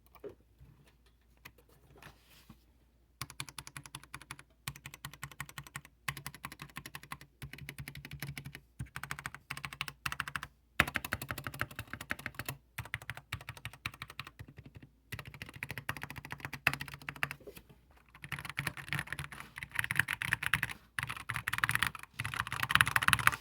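Computer keyboard being typed on: a few single key presses, then rapid typing in runs of a second or two with short pauses, fastest and loudest near the end.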